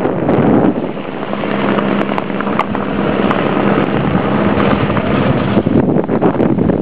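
Helicopter flying away overhead, a steady low drone under heavy wind buffeting on the microphone.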